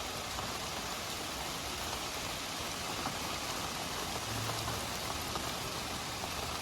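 A steady, even rain-like hiss, with no rhythm or tones in it.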